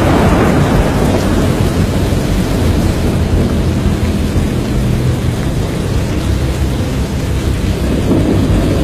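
Loud, steady storm noise: a heavy low rumble with a rushing, rain-like hiss over it, easing slightly in the middle.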